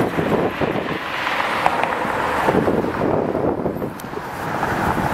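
Wind gusting on the microphone, with city street traffic running underneath as an uneven rushing noise.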